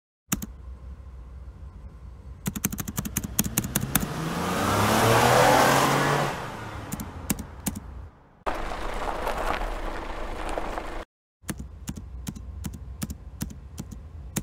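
Golf cart sound effect: a motor vehicle passing by that swells, falls in pitch and fades, with many sharp clicks and clatter throughout. Near the end it cuts off abruptly into further stretches of running noise and clicks.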